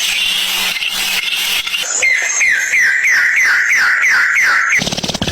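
A steady hiss, then from about two seconds in a run of about seven quick animal calls, each falling in pitch, two to three a second. Near the end it cuts off suddenly to a different, rapidly pulsing sound.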